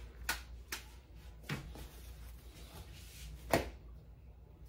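Phyllo dough sheets being handled and laid into a baking tray: a few short light taps and rustles, the loudest about three and a half seconds in.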